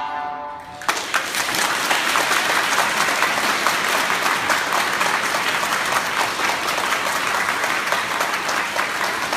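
A held final note of the music stops about a second in, and the audience breaks into steady applause.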